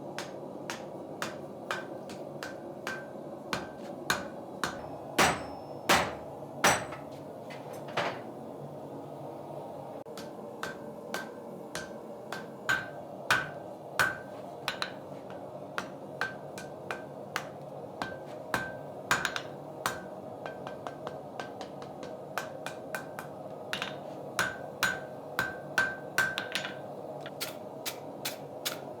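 Blacksmith's hammer forging hot iron on an anvil: runs of quick strikes with ringing taps on the anvil between them, and a few heavier blows. A steady hum runs underneath.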